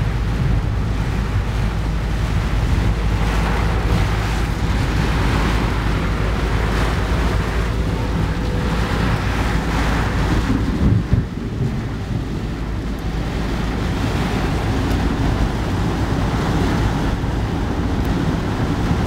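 A car driving in the rain: a steady low rumble of engine and road, with the hiss of rain and wet road noise that swells and fades. A single thump about eleven seconds in.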